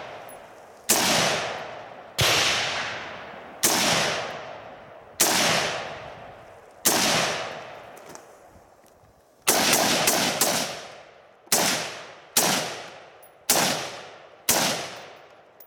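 About a dozen shots from an Armalite SPR Mod1 AR-15 semi-automatic rifle in 5.56, fired one at a time. Each crack trails off over a second or more. The shots come at a slow, aimed pace at first, then three in quick succession a little past the middle.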